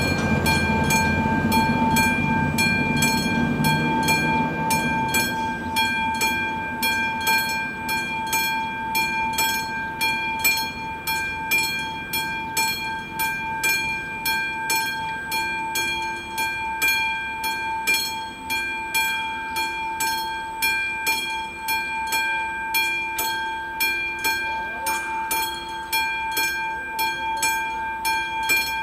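Level-crossing warning bell at an AŽD 71 crossing, ringing in a quick, even rhythm while the red lights flash: the crossing is closed for an approaching train. A low vehicle rumble fades away in the first few seconds.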